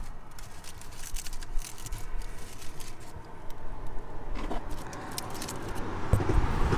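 Aluminium foil wrapping crinkling and scraping as a foil parcel is handled and pulled open by hand, with many scattered crackles.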